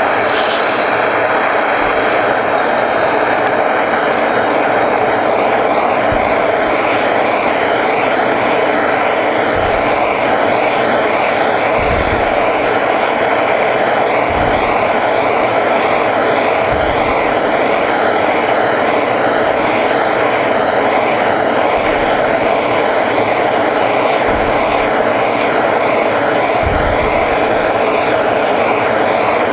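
Propane hand torch burning with a steady, unbroken rush of flame, held on a copper boiler end plate to heat it to red heat for annealing.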